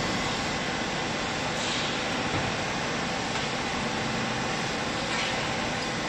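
Steady, even machinery noise with no distinct strokes or changes in pitch.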